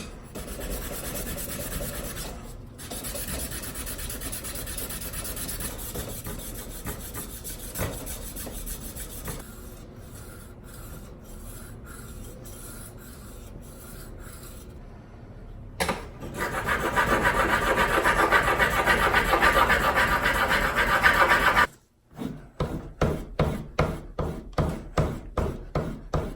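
Fine 1200-grit sandpaper being rubbed by hand against a hand plane part. A steady scratchy rubbing grows louder about two-thirds of the way through, breaks off briefly, then becomes quick back-and-forth strokes at about two a second.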